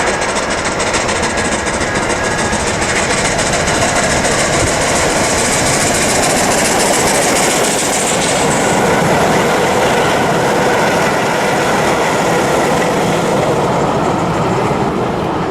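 Steam-hauled passenger train of FS Gr.685 locomotive and Centoporte carriages running past, its wheels clattering steadily over the rails. The bright high clatter eases about halfway through.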